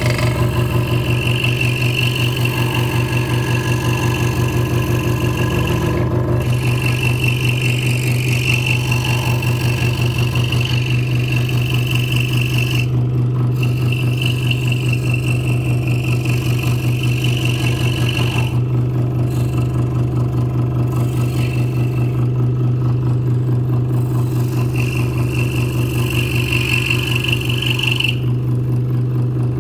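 Hegner Multicut 2S scroll saw running steadily, its blade cutting fine pierce work in a small wooden block. Under the steady machine hum, a higher cutting sound comes and goes as the blade bites, dropping out briefly several times.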